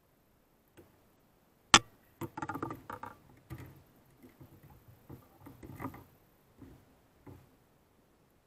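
A sharp click about two seconds in, then scattered rattles and knocks as a caught bass and fishing gear are handled on a plastic kayak.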